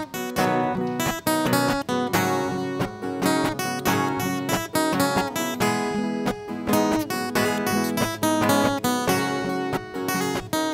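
Instrumental introduction of a sertanejo song on acoustic guitar, strummed chords with picked melody notes, before the vocals come in.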